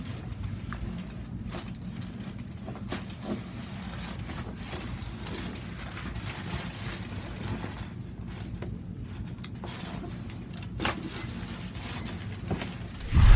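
Steady low hum with faint scattered clicks and rustles, and one slightly louder knock about eleven seconds in.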